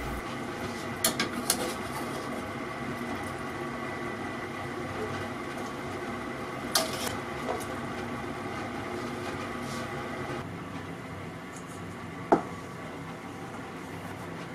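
A metal ladle clinks against a stainless steel bowl and saucepan a few times while boiled pork cartilage pieces are scooped out, over a steady background hum that drops slightly about ten seconds in. One sharp knock, the loudest sound, comes about twelve seconds in.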